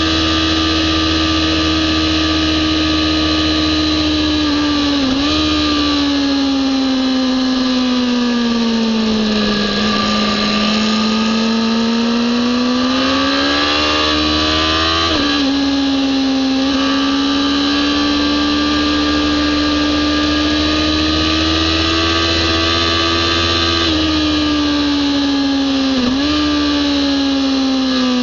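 Kawasaki ZX-10R inline-four sportbike engine at high revs on a race track, heard from on board. The engine pitch sags through a corner about ten seconds in and climbs again as the throttle opens. There are brief jolts in the pitch near five, fifteen and twenty-six seconds, where the revs change quickly.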